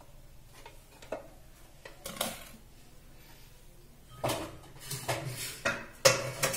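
Stacked metal cooking pots clinking as they are lifted and carried. Near the end there is a run of clattering knocks and scrapes as the pots are put away.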